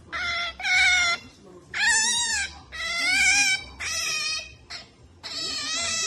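Pet otter making a pampering noise while being stroked: about six high-pitched whining squeals, each drawn out for under a second, with short pauses between them.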